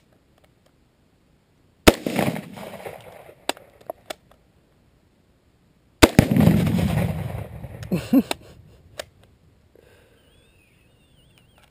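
Two sharp reports about four seconds apart, each trailing off in a rolling echo: rifle shots at a Tannerite target. The second is louder, with a long low rumble, and fits the Tannerite detonating.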